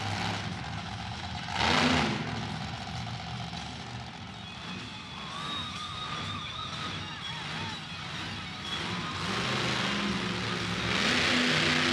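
Monster truck engine running, climbing in pitch and getting louder as it revs near the end, with a short loud burst about two seconds in.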